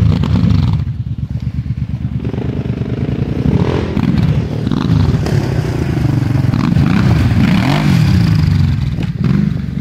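Quad bike (ATV) engine revving up and down again and again as it is ridden on dirt, easing off for a moment about a second in.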